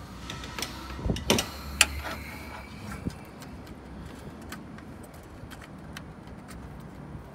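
A few sharp clicks and knocks from hand work on a fitting at the bottom of a car radiator, bunched between about one and three seconds in, then only a faint steady background.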